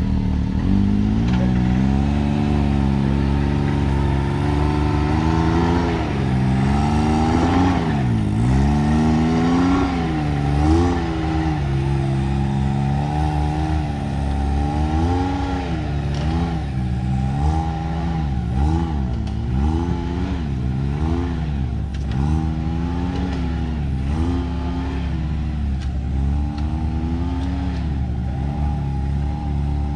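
Can-Am Maverick X3 side-by-side's turbocharged three-cylinder engine revved up and down in short throttle blips, about once a second, while rock crawling at low speed. It holds fairly steady for the first few seconds before the blips start.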